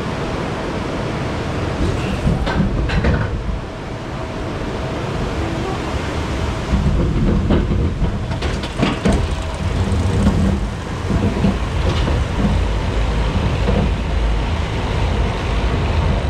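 Maurer SC3000 spinning roller coaster car rolling along its track, wheels rumbling steadily, with a number of sharp clacks and clunks scattered through it.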